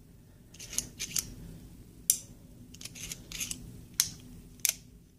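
Traditions Frontier Series 1873 single action revolver's cylinder being turned by hand at half cock with the loading gate open: a series of about eight sharp metallic clicks, unevenly spaced.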